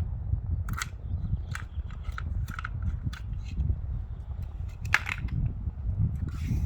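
Small plastic and metal clicks from a key turning in crossbar lock cylinders and the locks being pulled out. The clicks are scattered, with the strongest about five seconds in, over a steady low rumble.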